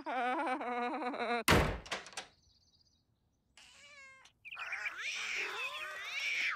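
A cartoon voice wails, then a door slams shut about a second and a half in. After a short silence, a crowd of cats starts meowing, with birds calling among them, building through the second half.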